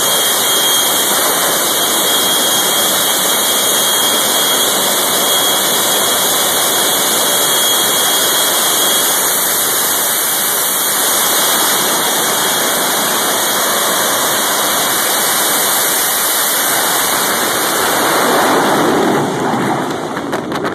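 Jet-powered hearse's turbine engine running with a loud, steady rush, swelling slightly, then falling away sharply near the end.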